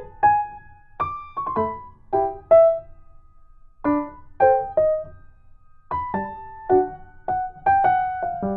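Background music: a slow, gentle piano melody of single notes, each ringing and fading, with a short pause about three seconds in.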